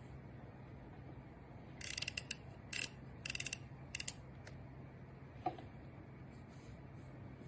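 Plastic parts of a hand blender being handled, with several short bursts of sharp clicks and a fast ratcheting run over a faint steady low hum.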